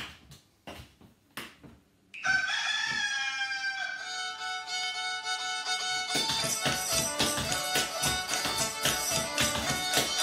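A few sharp knocks, then music starts about two seconds in, its opening notes sliding in pitch like a fiddle; from about six seconds a quick, steady tapping beat runs under the tune, setting up a clog dance.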